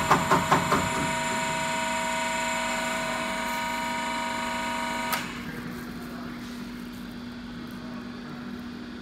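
Diesel injector test bench running. A rapid, even clicking of about five a second stops within the first second, leaving a steady machine whine with several tones. The higher tones cut off suddenly about five seconds in, leaving a lower hum.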